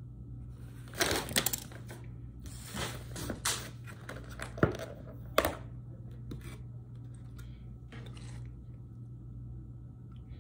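Clear plastic takeaway salad container being opened: crackles and sharp clicks of the plastic lid being pried off and handled, loudest about a second in and again around five seconds in, over a low steady hum.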